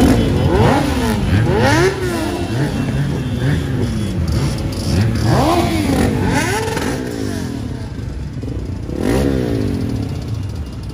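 Many motorcycle engines idling and revving at once, with repeated overlapping rises and falls in revs.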